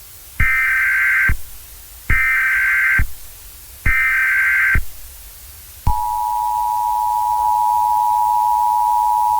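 Emergency Alert System SAME header: three short bursts of digital data tones, about a second each. About six seconds in, the steady two-tone EAS attention signal (853 and 960 Hz) starts, announcing a tornado warning.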